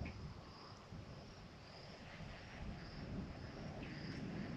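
Quiet outdoor ambience: a faint low rumble with a faint high-pitched chirp that repeats about twice a second.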